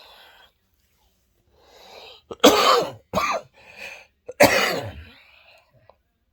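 A man coughing hard three times, drawing breath in between, in a harsh coughing fit from a sore throat.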